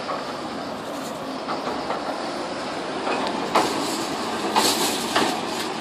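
Volk's Electric Railway carriage running along its narrow-gauge track as it pulls away and passes close, a steady rumble of wheels on rail. From about three and a half seconds in, a few sharp clacks come as the wheels cross rail joints.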